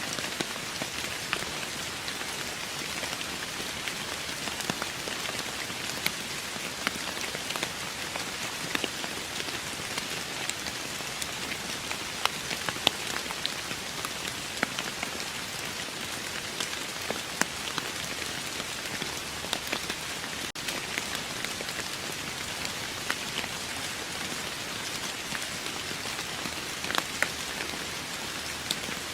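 Steady rain falling on a surface: an even hiss with many separate drops ticking sharply through it.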